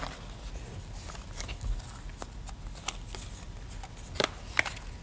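Thin cardboard being bent and handled, with scattered small rustles and clicks; the two loudest ticks come a little after four seconds in.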